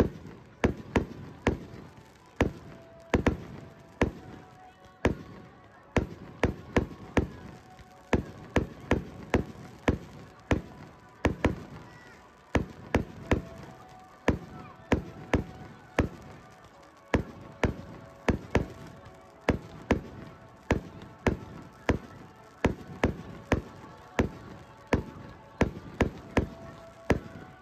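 Fireworks display: aerial shells bursting in rapid succession, sharp bangs coming two or three a second in clusters.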